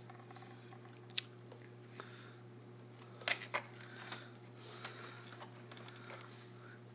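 Handling noise of a plastic RC toy car being turned about against its cardboard box: scattered light clicks and knocks, a sharp one about a second in and two close together a little past three seconds, over a steady low hum.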